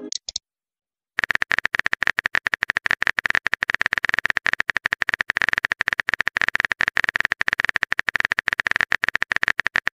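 Texting app's keyboard typing sound effect: a rapid, steady run of key clicks, starting about a second in.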